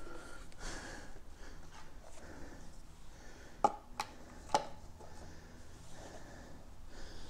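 Light handling noises from plastic motor-oil bottles being opened and handled during an oil refill, with three sharp clicks close together a little past the middle.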